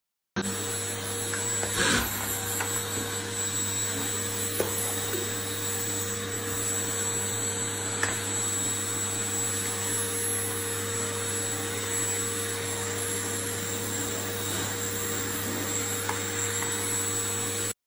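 Vacuum cleaner running steadily, with a light knock about two seconds in.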